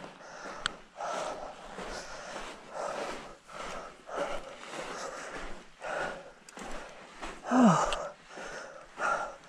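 A hiker breathing hard, with a noisy breath about once a second. A loud, short voiced sigh falls in pitch about three-quarters of the way in.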